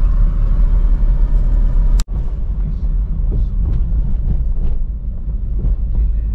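Steady low rumble of a car's engine and tyre noise heard from inside the cabin of a moving taxi in traffic. The sound drops out for an instant about two seconds in, at a cut in the footage.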